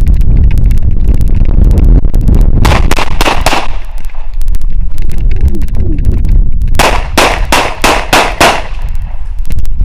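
Rapid gunfire in quick strings of shots, loudest in a cluster about three seconds in and again from about seven to eight and a half seconds.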